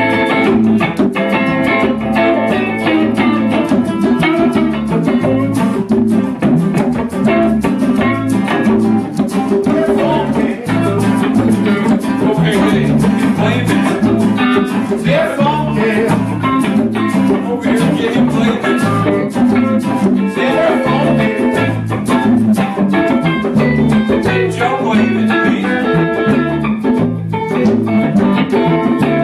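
Live jam of electric and acoustic guitars with a djembe-style hand drum playing together, the guitars strumming over a repeating low-note pattern and steady hand-drum strikes.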